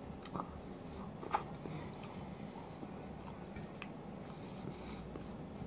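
Soft chewing of poutine fries with a few light clicks of a fork on a plate, the sharpest about a second and a half in.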